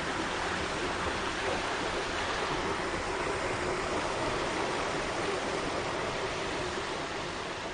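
Several small artificial rock waterfalls pouring into a garden pond: a steady rush of falling water.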